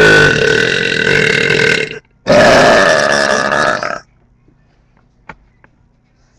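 Two long, loud burps, each lasting about two seconds, one right after the other, made close to a webcam microphone.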